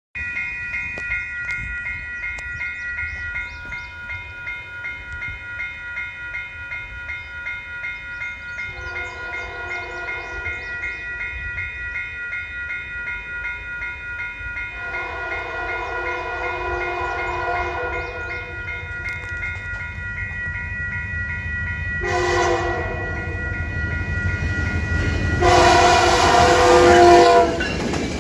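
Diesel locomotive horn on an approaching Canadian Pacific track evaluation test train, sounding two long blasts, a short one and a final long, louder blast: the long-long-short-long pattern of a grade-crossing signal. A steady high ringing tone runs underneath, and the low rumble of the train grows louder toward the end.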